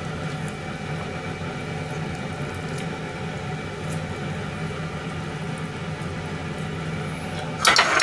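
Steady mechanical hum of a kitchen motor, such as a range-hood fan or other appliance, holding a constant pitch. A brief loud clatter near the end.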